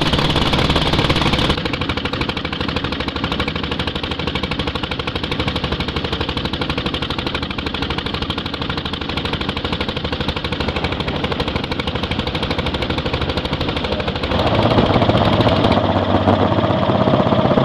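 BSA M33 500 cc single-cylinder motorcycle engine running on the road, its exhaust a loud, rapid, even train of firing beats. The sound drops and dulls about a second and a half in, then grows louder again about fourteen seconds in.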